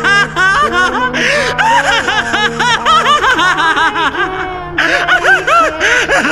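A young man's voice laughing manically and at length, long runs of quick, loud 'ha's rising and falling in pitch, over a steady low music drone.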